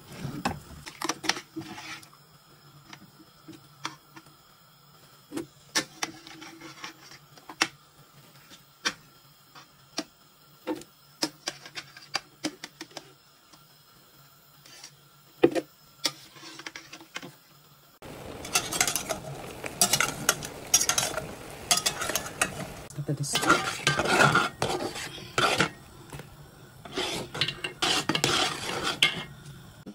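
Metal spoon clinking and knocking against a steel pot in scattered single strikes as peppers are scooped out. From about two-thirds in, a busy run of scraping and clattering as a spoon stirs through red pepper purée in a pot.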